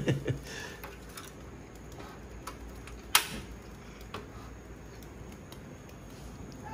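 Pot of freshly salted water at a boil on a portable butane burner: a low steady hiss with scattered light ticks, about one a second, and one sharper click about three seconds in.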